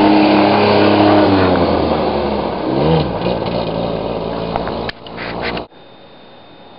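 A vehicle engine running steadily, with a change in pitch about three seconds in. It cuts off abruptly about five and a half seconds in, leaving quiet room tone with a faint steady high whine.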